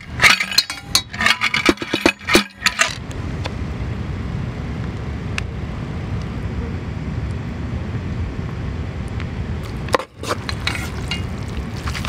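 Clinks and clatter of ice and utensils against a stainless steel pot of noodles for the first three seconds, then a steady low rumble with a single click near the end.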